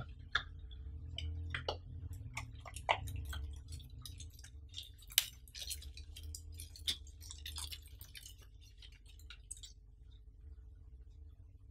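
Hands handling small unboxing contents: a thin clear plastic bag crinkling around a coiled USB cable, with light clicks and taps of plastic and cardboard on a table. The handling sounds thin out near the end.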